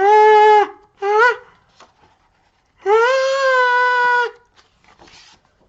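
A high-pitched voice acting out the wind-up to a big sneeze: held "ah" sounds, a medium one, a short one about a second in, then a long one of about a second and a half from about three seconds in.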